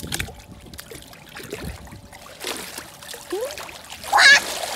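Pool water splashing as children get in and move about, with a child's short high-pitched squeal near the end.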